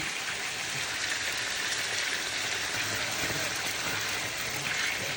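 Chicken frying in hot oil: a steady, even sizzle.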